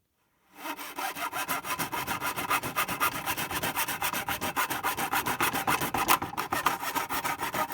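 Hand saw cutting through a plastic router case in fast, regular back-and-forth strokes that start about half a second in and keep going.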